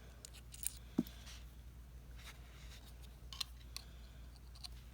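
Faint scattered metal clicks and taps of a Topeak Mini 18 Plus folding bike multi-tool being handled, with one sharper click about a second in, over a low steady room hum.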